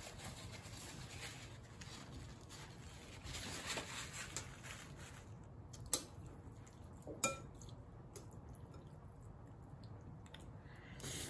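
Eating sounds: wet chewing and mouth sounds, with metal chopsticks clicking against a ceramic noodle bowl twice, about a second apart, midway through.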